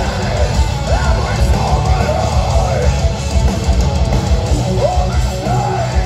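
Metalcore band playing live at full volume: heavily distorted electric guitars, bass and drums, with a screamed lead vocal over them.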